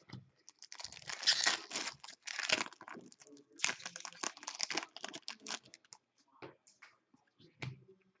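Foil wrapper of a hockey card pack crinkling and tearing in two stretches, followed by light scattered clicks of cards being handled.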